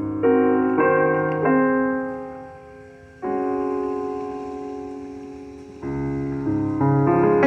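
Piano playing slow processional music: held chords that fade away, with fresh chords struck about three seconds in and again near six seconds, and the playing picking up just before the end.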